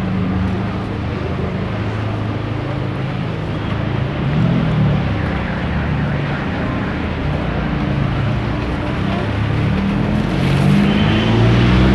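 City street traffic: motor vehicle engines running close by, with a low steady hum. One engine speeds up near the end.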